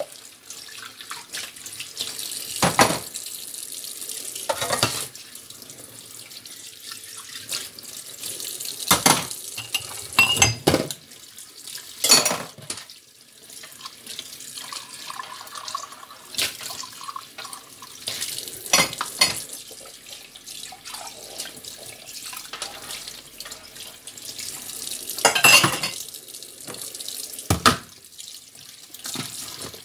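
Tap water running into a stainless-steel kitchen sink as dishes are washed and rinsed by hand, with mugs and dishes clinking and knocking against each other and the sink every few seconds.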